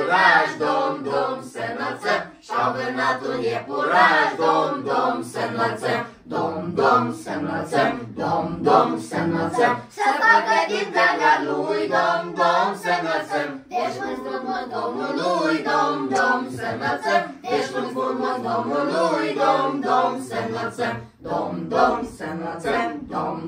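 A small mixed group of men, women and a child singing a Romanian Christmas carol (colind) together, unaccompanied.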